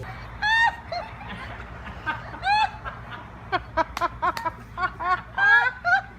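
High-pitched laughter in short, bursting calls: a couple of separate giggles, then a quick run of laughs in the second half.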